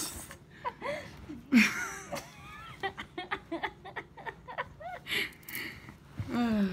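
A person laughing and giggling in short broken bursts, with a few brief voiced squeaks and breaths between.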